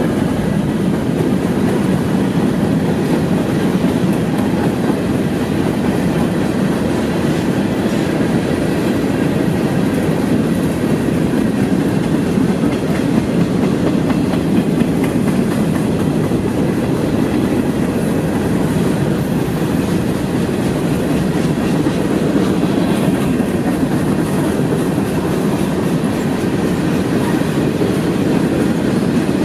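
Freight cars (covered hoppers and boxcars) rolling past on steel wheels: a steady, unbroken rolling noise of wheels on rail that holds the same level throughout.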